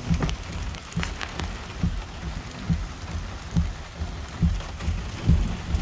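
Heavy rain beating on a car, heard from inside the cabin, with scattered sharp drop ticks and a low thud about once a second.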